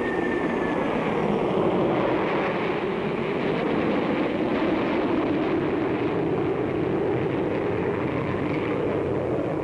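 Steady jet roar of a Vickers Valiant bomber's turbojets as it flies past low, heard through an old newsreel soundtrack.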